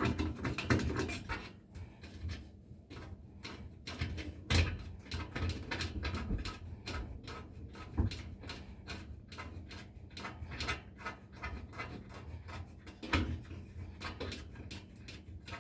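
Screws being loosened on a gas furnace's sheet-metal access panel: a long run of small irregular clicks and scrapes with a few louder knocks.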